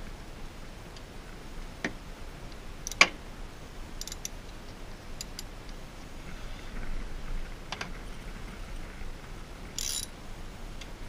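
Scattered clicks and ticks of a hand ratchet with an extension, worked by hand to tighten a coil-on-plug hold-down bolt. The clicks come irregularly, a sharp one about three seconds in the loudest.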